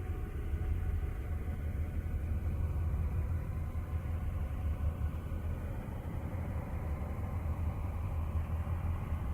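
Steady low rumble with faint wavering tones drifting above it: a NASA 'planet sound', spacecraft radio and plasma-wave recordings turned into audio.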